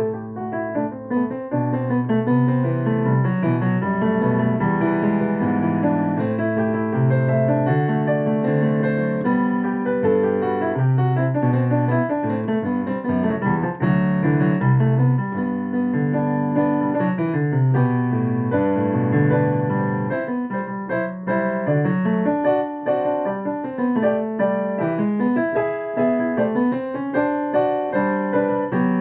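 Solo piano playing an improvised piece: flowing chords and melody over held low bass notes, continuous and fairly loud throughout.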